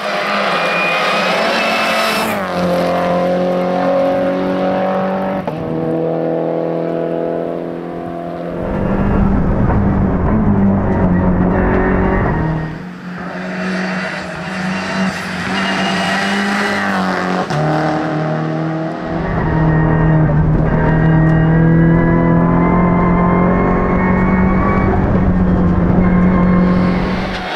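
Peugeot 308 Racing Cup's turbocharged 1.6-litre four-cylinder at full race pace, heard inside the stripped cabin. The engine note climbs and drops again and again through gear changes and lifts for corners.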